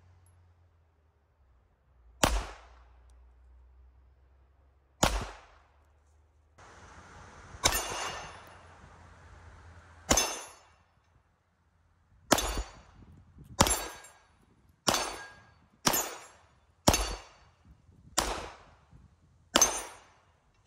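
CZ 75 SP-01 pistol firing eleven single shots, each with a short echo. The first four come about two and a half seconds apart, then a quicker string follows, about one shot a second.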